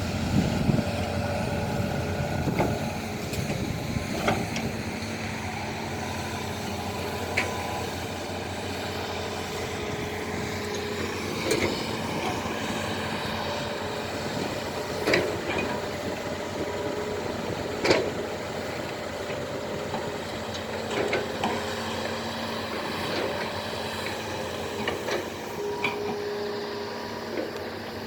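Excavator diesel engines running steadily under work, with scattered sharp knocks and clanks, the loudest about eighteen seconds in.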